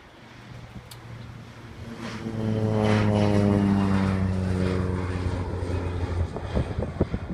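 Low-flying crop-duster airplane passing overhead: its propeller drone swells to a peak about three seconds in, then fades as it flies off, the pitch dropping slightly as it goes by. Wind buffets the microphone near the end.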